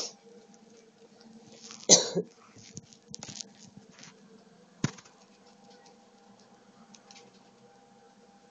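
One short, loud cough-like huff about two seconds in, in two quick parts, while small dogs play, with a sharp click near five seconds and a few faint scuffles.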